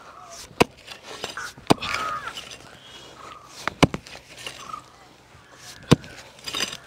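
Pickaxe striking hard, dry red soil: four sharp blows, one to two seconds apart, with clods of earth crumbling and shifting between them.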